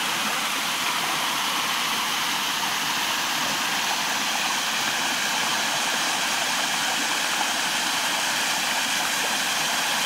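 Steady rushing of a small rocky forest stream, water spilling over a low cascade between boulders into pools.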